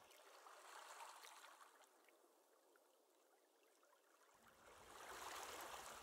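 Very faint river sound: the steady hiss of running water, swelling slightly near the end.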